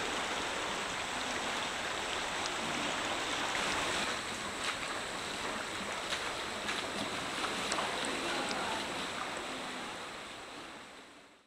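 Shallow river water rushing through a rocky canyon: a steady hiss of flowing water with a few faint clicks, fading out near the end.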